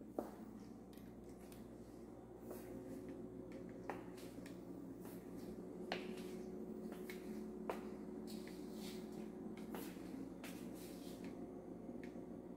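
Quiet room tone with a steady low hum, broken by a few faint, isolated clicks and taps a second or two apart.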